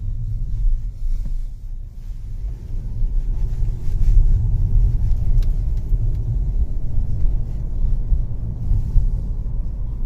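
Cabin sound of a Mercedes-Benz C250 (W204) four-cylinder pulling away from a stop: a low, steady engine and road rumble that grows a little louder a few seconds in. With new engine mounts fitted, the rhythmic rotation noise of the high-pressure fuel pump is no longer heard: nice and quiet.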